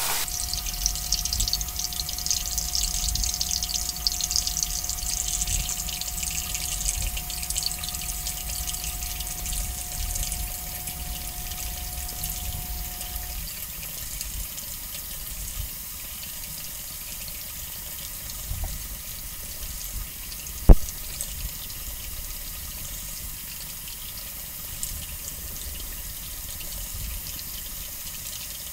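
Cartridge razor (Jeremy's Razors) scraping through lathered beard stubble in short strokes, over water running from a sink tap. The running water stops about halfway through, leaving the rasp of the strokes. A single sharp knock comes about two-thirds of the way in.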